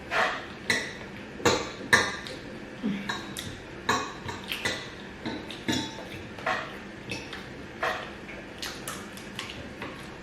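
Cutlery clinking and scraping against a plate as gari, beans and fried plantain are eaten, in a string of irregular sharp taps about two a second. The loudest come in the first two seconds.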